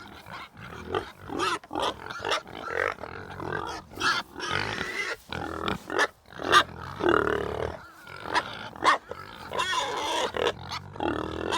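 Leopard growling and grunting in a run of short, rough, irregular calls.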